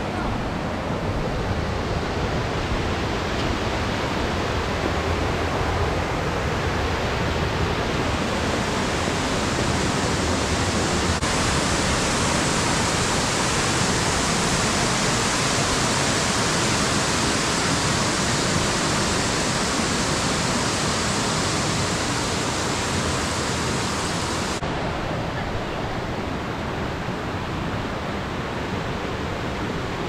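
Rushing water of a waterfall: a loud, steady roar with no pauses, whose tone brightens or dulls abruptly twice.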